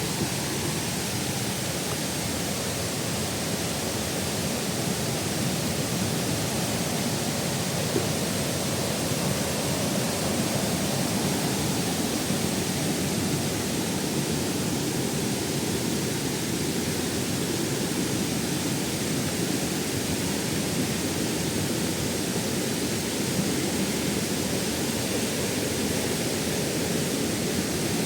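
Multi-tiered waterfall: water pouring and splashing in a steady, unbroken rush.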